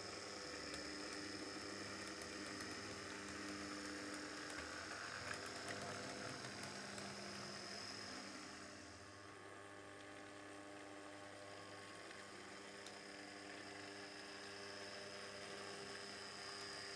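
Small electric drive motors of 00-scale model trams running, a steady hum with a high whine, and light ticking from the wheels on the track. The sound dips briefly about halfway through, then the hum and whine return.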